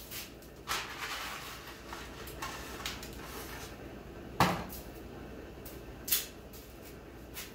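Dry spaghetti snapped by hand into short pieces and dropped into a pot: a handful of sharp snaps and clicks, the loudest about four and a half seconds in.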